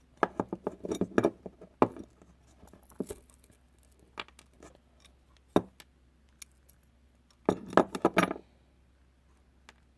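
Small hard objects being handled, clicking and clinking against each other and a hard surface. There is a quick run of clicks in the first two seconds, a few single taps in the middle, and another burst of clatter around three quarters of the way through.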